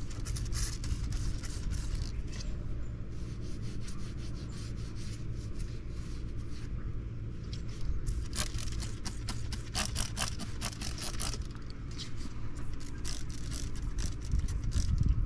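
Hand trigger spray bottle squirted again and again in short quick sprays, with a dense run of them about eight seconds in, over a steady low rumble.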